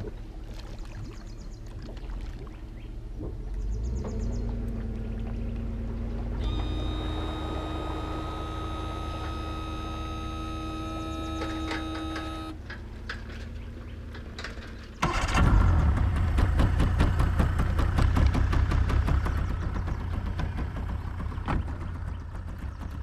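Mercury outboard motor on a bass boat running, with a set of steady whining tones from about six to twelve seconds in. About fifteen seconds in it suddenly becomes much louder.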